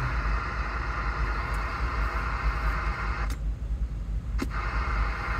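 Cobra 29 LTD Classic CB radio hissing with receiver static. The hiss cuts off suddenly with a click about three seconds in, a second click follows about a second later, and a low rumble runs underneath.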